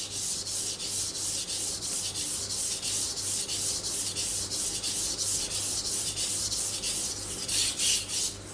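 Kitchen knife blade being pushed back and forth across a wet Japanese water stone, making a scraping hiss in quick, even strokes. An even, unchanging stroke sound like this is the sign that the sharpening angle is being held steady. The strokes grow louder and less regular near the end.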